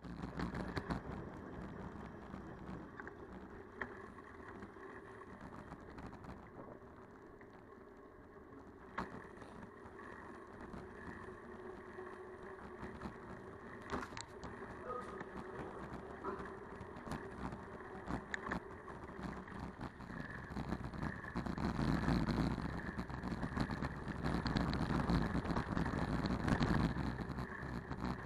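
Riding noise from a bicycle in motion: a steady rolling hiss with a few sharp clicks and knocks. It grows louder and more rumbling for the last several seconds.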